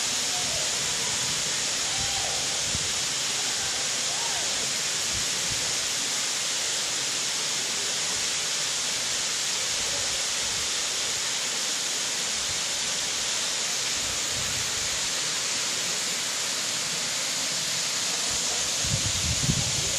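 Waterfall splashing into a pool: a steady, even hiss of falling water, with a few low bumps near the end.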